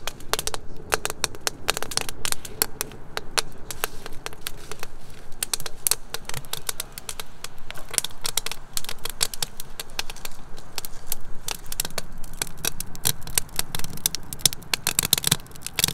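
Wood fire crackling in a chiminea: dense, irregular pops and snaps.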